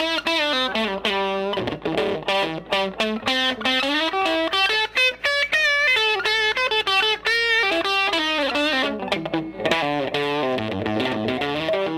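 Electric guitar played through a Fender Model 26 'Woody' 10-watt tube amp with a 10-inch Jensen field-coil speaker: a continuous single-note lead line with frequent bends and slides.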